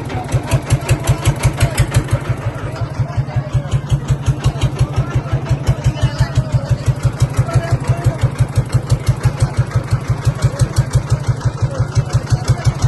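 Boat engine running steadily with an even low beat, about four to five beats a second, with faint voices underneath.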